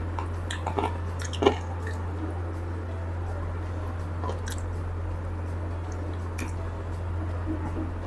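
Close-miked chewing and biting of roast chicken leg meat: wet mouth clicks and squishes, the loudest bites about a second in and again half a second later. A steady low hum runs underneath.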